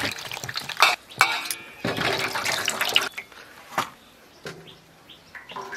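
Water splashing and sloshing in a stainless-steel bowl as pumpkin flowers are swished and rinsed by hand, for about three seconds; then it goes quieter, with a single sharp clack about four seconds in.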